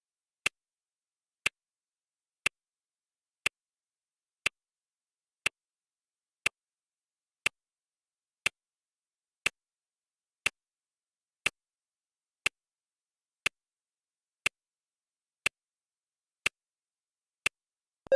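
Clock ticking sound effect marking off a countdown timer's seconds: one short, crisp tick each second, evenly spaced, with nothing between the ticks.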